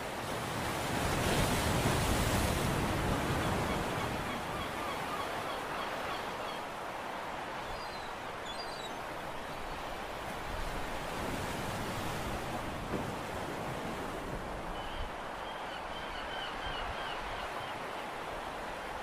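Steady rushing of wind and sea water, swelling louder for a couple of seconds near the start.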